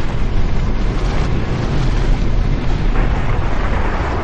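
A cinematic fire-and-blast sound effect: a loud, dense rumbling roar that eases off slowly.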